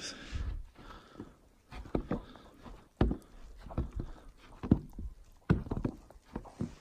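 Footsteps on the snow-covered plank deck of a suspension footbridge: a series of thuds and knocks, roughly one a second.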